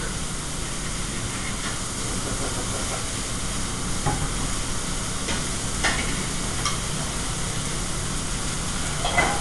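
Restaurant kitchen line at work: a steady hiss of food frying over a low hum from the ventilation hood, with a few sharp clinks of pans and utensils about four, six and seven seconds in.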